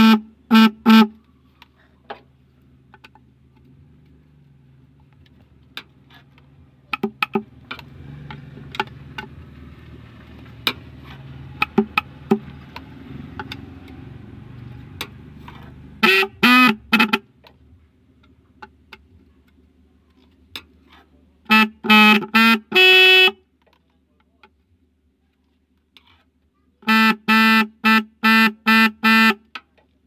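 Electric snail horn (klakson keong) being test-sounded in short beeps: three about halfway, a quick run ending in one longer blast a few seconds later, then about six quick beeps near the end.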